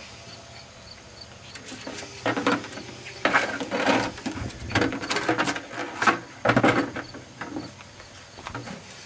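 An empty plastic bucket scraping and bumping over concrete as a small dog shoves it along with its head, in a run of irregular scrapes and knocks starting about two seconds in.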